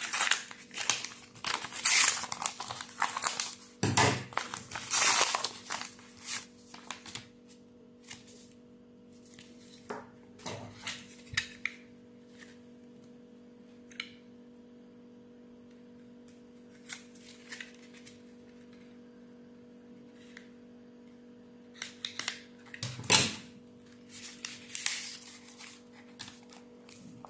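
Scissors cutting through a paper mail envelope, with paper rustling and crinkling in the first several seconds, then sparse soft paper handling and another spell of crinkling near the end. A faint steady hum runs underneath.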